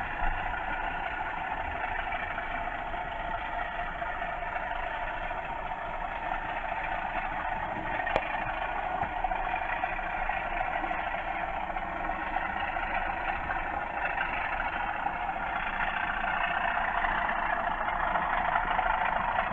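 Class 37 diesel engine sound played by a Hornby TTS sound decoder through a model locomotive's small on-board speaker, running steadily as the model train goes round the layout. There is a single sharp click about 8 seconds in.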